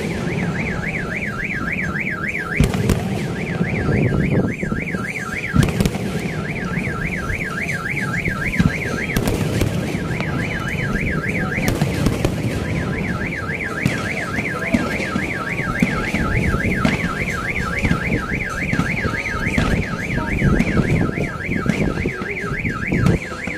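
A fireworks display: scattered bangs and a dense crackle from aerial shells. Through it runs a continuous, rapidly warbling electronic alarm tone that breaks off briefly a few times.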